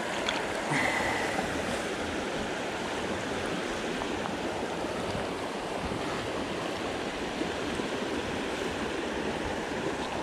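Steady rush of a trout stream's flowing water, with a brief faint high tone about a second in.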